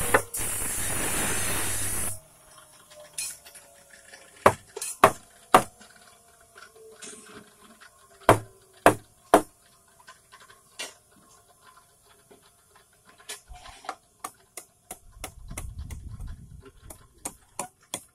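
Hatchet blows on the wooden bed-frame rail and the turned leg at their joint: sharp single knocks, several in threes, then a quicker run of lighter taps in the last few seconds. A loud rushing noise fills the first two seconds and cuts off suddenly.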